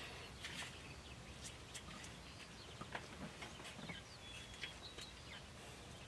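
Quiet outdoor background with faint, scattered light clicks and a few brief high chirps.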